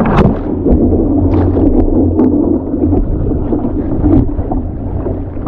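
Wind buffeting the microphone with a heavy low rumble, over water splashing and slapping as a double-bladed kayak paddle dips into choppy waves, with several short splashes in the first half.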